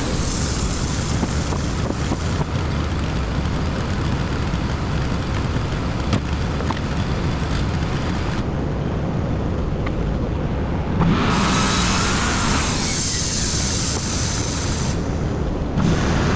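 WoodMizer LT35 bandsaw mill running, its engine and band blade sawing a hemlock log into boards. The sound changes abruptly a few times.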